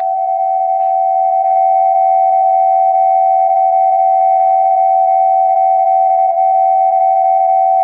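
Emergency alert system attention signal: a loud, steady electronic tone of a few held pitches sounding together, unbroken and unchanging.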